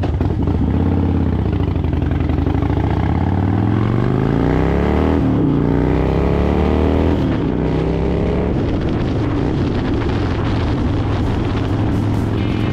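Harley-Davidson Dyna Fat Bob's V-twin engine under way. The revs climb, drop sharply about five seconds in at a gear change, climb again and drop at a second shift near seven seconds, then hold steady at cruise.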